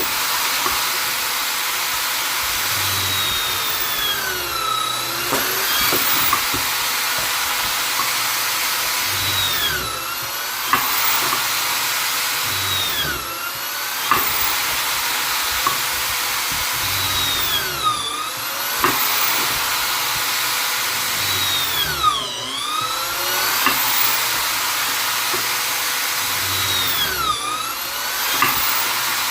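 Vonder drill-driver motor running continuously with a high whine. Its pitch dips briefly and climbs back about every four to five seconds, with a few short clicks scattered through.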